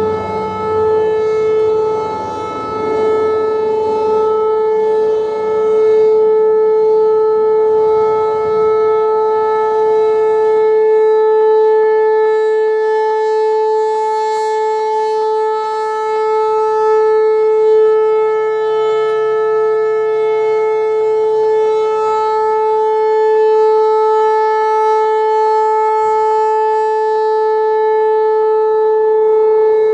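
Whelen Vortex R-4 electronic storm siren sounding a steady alert tone during a test, holding one pitch with strong overtones, its loudness swelling and dipping slightly.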